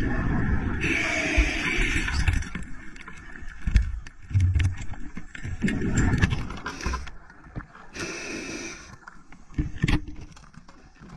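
Underwater sound picked up by a camera in the water: an uneven low rumble of moving water with scattered clicks and knocks, and a few short stretches of hiss.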